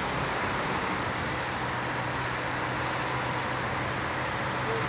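Steady motor-vehicle hum, most likely a race motorbike engine running behind the riders, under a continuous wash of outdoor road noise.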